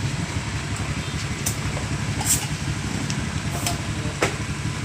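A motor vehicle engine running steadily with a rapid low pulsing, with a few short sharp clicks over it.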